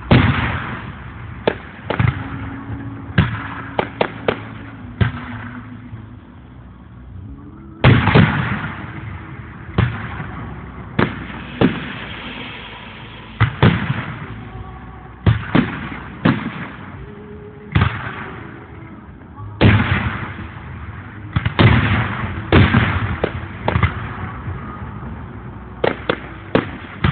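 Aerial firework shells bursting in a display: a long irregular run of loud bangs, some in quick clusters, each booming and echoing away. Picked up by a phone's microphone, so the treble is dulled.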